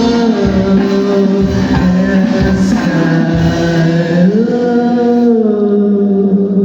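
Rock band playing live: a singer holds long notes over guitar and drums. About four seconds in, the voice slides up to a new held note and the drums drop out, leaving voice and guitar.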